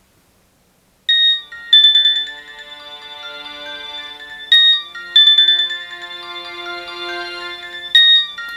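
Nokia 6280 mobile phone playing a polyphonic ringtone: after a moment of silence the tune starts about a second in, a bell-like melody whose short phrase repeats about every three and a half seconds, each time opening with two loud high notes.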